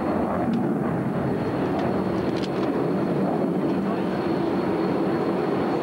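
Steady jet noise from a MiG-29 fighter's two Klimov RD-33 turbofan engines as it maneuvers in flight.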